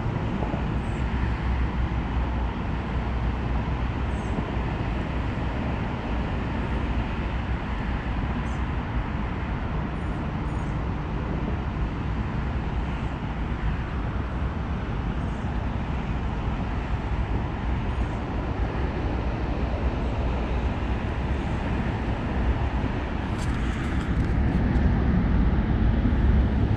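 Steady roadway traffic noise, a continuous rush of cars on a nearby parkway, growing a little louder near the end.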